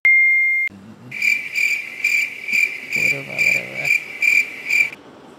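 A short, loud, steady electronic beep, then a crickets-chirping sound effect: evenly spaced high chirps about two a second that stop abruptly near the end, the comedy cue for an awkward silence.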